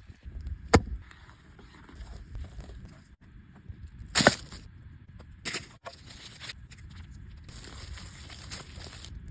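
Crackling and rustling handling noises with a few sharp snaps or knocks, the loudest about a second in and again about four seconds in.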